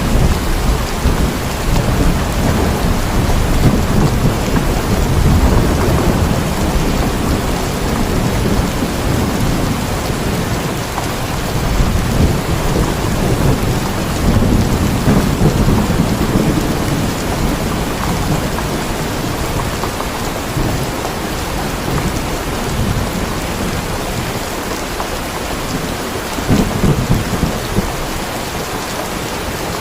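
Steady heavy rain with rolling thunder rumbling low underneath, swelling and fading through the first half and again briefly near the end.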